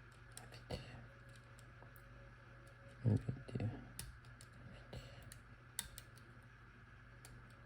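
Small, irregular clicks of a disc-detainer pick turning and probing the rotating discs inside an Abloy Classic padlock, with a slightly louder cluster of knocks about three seconds in.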